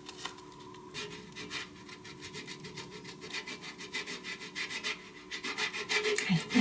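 Rhythmic rasping scrapes, several strokes a second, of a hand-worked kitchen tool putting a finishing topping on a plate of pasta. The strokes grow louder near the end.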